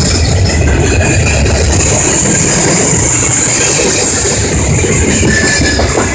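Freight train rolling past close by: a loud, steady rumble of wheels on rail with a high hiss.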